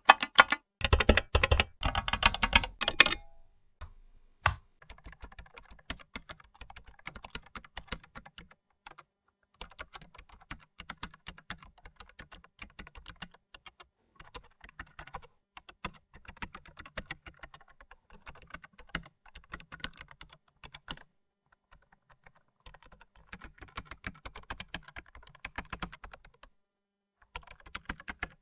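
Typing on a computer keyboard: a loud, fast clatter of keystrokes for about the first three seconds, then a much quieter, softer run of keypresses that goes on with a couple of short pauses.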